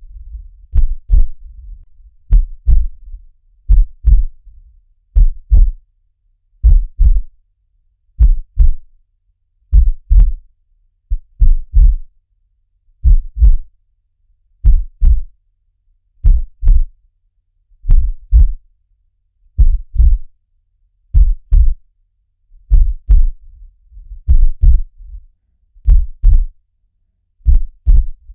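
Looped heartbeat sound effect: a slow, steady double thump (lub-dub), deep in pitch, one beat about every second and a half.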